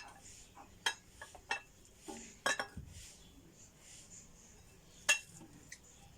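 Kitchen utensils and dishes knocking and clinking: a handful of separate sharp clinks, the loudest right at the start and about five seconds in, with a quick cluster about halfway.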